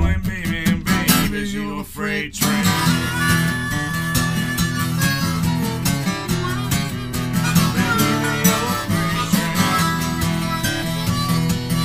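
Acoustic guitar strumming chords, with a harmonica coming in about two and a half seconds in and playing a held, wailing melody over the guitar.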